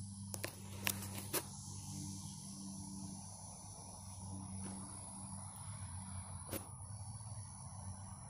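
Faint steady high-pitched whine over a low hum, with a few sharp clicks: three within the first second and a half and two more later on.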